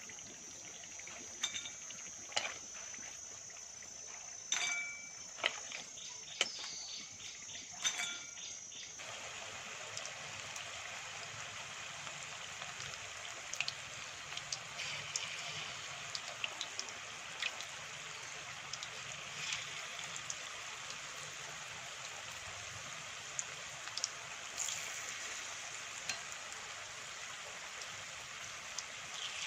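Batter-coated banana flowers deep-frying in hot oil: an even sizzling hiss with small crackles and occasional taps of a utensil against the pan. About nine seconds in the sizzle becomes louder and fuller, and a steady high tone heard until then stops.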